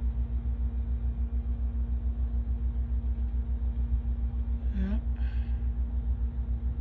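An engine running at idle: a low, even throb about seven times a second with a steady hum over it. About five seconds in, a brief rising squeak.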